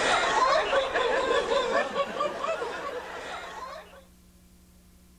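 Audience laughing and chattering, many voices at once, fading out about four seconds in to a faint steady hum.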